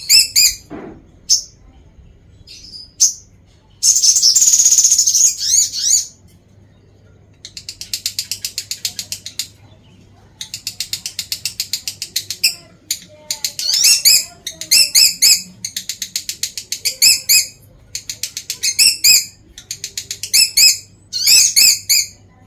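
Lovebird chattering in fast, high-pitched trilling bouts of one to two seconds each, repeated with short gaps, with one longer, louder stretch about four seconds in.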